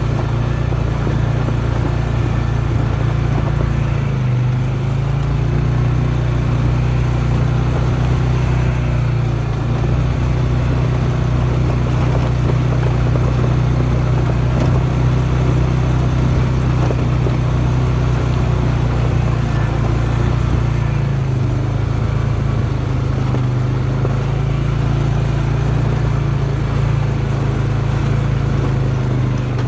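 Off-road vehicle's engine running at a steady, low, even speed, a constant drone with little change in pitch.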